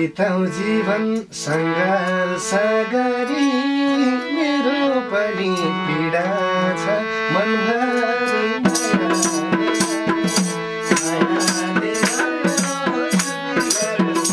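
Nepali folk dohori accompaniment: a harmonium melody over a madal hand drum. About nine seconds in, a tambourine starts jingling in a steady rhythm of about three strokes a second, with a held harmonium note and hand claps under it.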